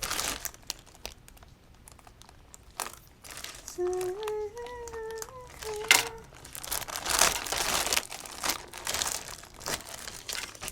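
Crinkling and rustling of a lucky bag's packaging as it is torn open and its contents handled, in irregular bursts that grow busier in the second half.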